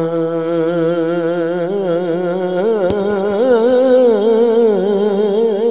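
Male voice singing a Punjabi Sufi kalam without words: a long held note, then a wavering, ornamented run on the vowel about two seconds in.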